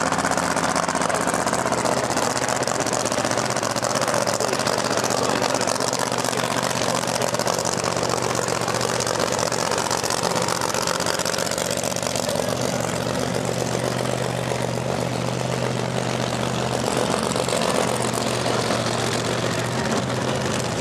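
A vehicle engine idling steadily, a low even hum that does not rev up.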